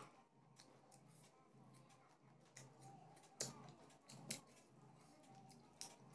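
Quiet eating sounds while eating rice and fish by hand: a handful of short, sharp clicks, the two loudest a little past the middle, over faint room noise.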